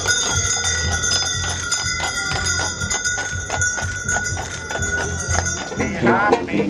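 Harness bells on a pair of draught horses pulling a stagecoach ringing steadily, with the horses' hooves clip-clopping on pavement. Banjo and tuba music starts near the end.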